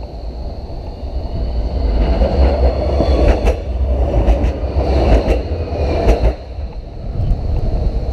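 Yellow articulated city tram passing close by on street-running track: a rumble of steel wheels on the rails builds as it approaches, peaks with a series of sharp clacks as the bogies roll by, then drops off suddenly about six seconds in as the last car clears.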